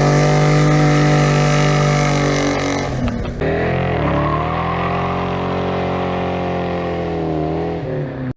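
A vehicle engine running at a steady high speed, with a rough break about three seconds in and a brief dip in pitch before it settles again. It cuts off suddenly at the end.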